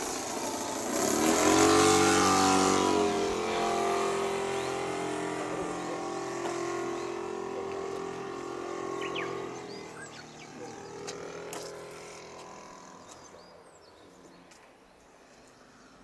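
Saito FG-40 four-stroke gasoline engine of a large radio-controlled model plane flying past. It is loudest about two seconds in, where its pitch drops as it passes, then it fades away steadily as the plane climbs off into the distance.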